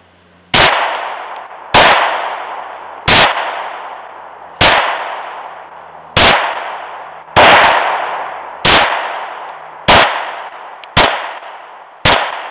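Semi-automatic pistol fired ten times in slow, steady succession, a shot about every second and a half, each shot followed by a long echo that dies away.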